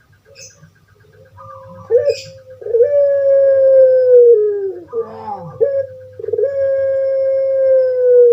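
Puter pelung (Barbary or ringneck dove) cooing: after a short opening note, two long drawn-out coos, each held about two seconds and sliding slowly down in pitch.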